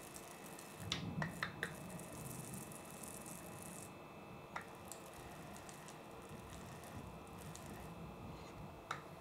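Faint handling of a 3D-printed plastic planetary gearbox: a quick cluster of sharp plastic clicks about a second in, a single click around the middle and another near the end, over a soft low rustle.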